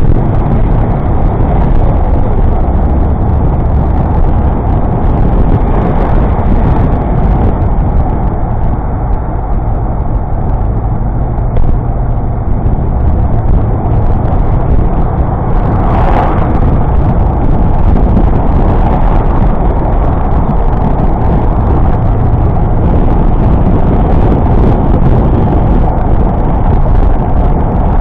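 A car being driven on the road: steady, loud engine and road noise with a heavy low rumble, and a brief louder swell about 16 seconds in.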